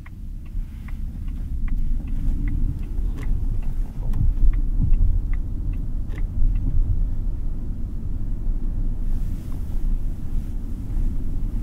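Road and tyre rumble inside the cabin of a HiPhi Z electric sedan as it speeds up out of a turn, growing louder about four seconds in, with no engine note. A faint, even ticking, about one tick every three-quarters of a second, runs through the first six seconds or so.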